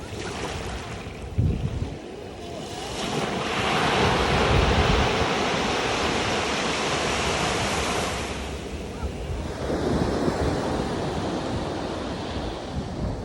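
Ocean surf breaking and washing up the beach: a big surge swells a couple of seconds in and holds for several seconds before fading, then a smaller wave comes in. Wind rumbles on the microphone.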